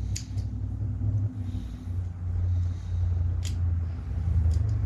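A few small, sharp metallic clicks as parts at a bicycle's rear Nexus hub are handled and hooked in, over a low, steady rumble.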